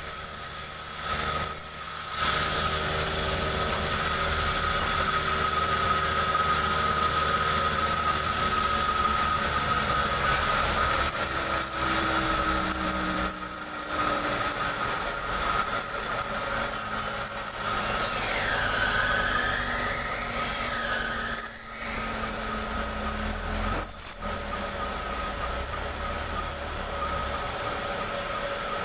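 Chainsaw engine running steadily with a steady whine while cutting jengkol wood, with a brief wavering squeal about two-thirds of the way through.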